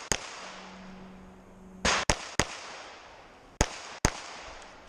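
Pistol shots on a stage of an action shooting match: about six sharp shots at uneven spacing, some in quick pairs, as the shooter engages targets.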